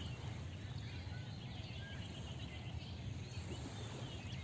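Open-air background ambience: a steady low rumble with scattered short, faint, high bird chirps.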